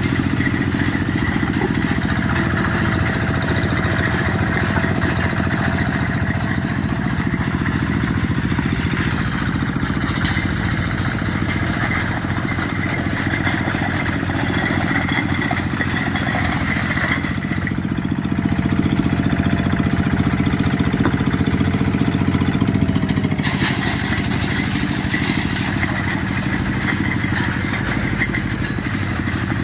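Quick G1000 two-wheel hand tractor's diesel engine running steadily while clearing scrub. For several seconds past the middle the engine note shifts and the hissing, clattering upper noise drops away, then returns.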